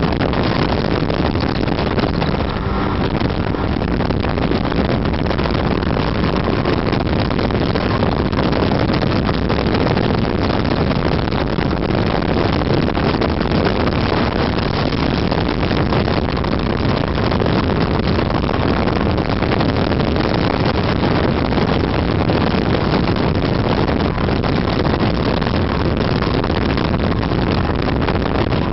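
Snowmobile running at a steady speed, heard from the rider's seat: engine and track noise mixed with wind buffeting the microphone.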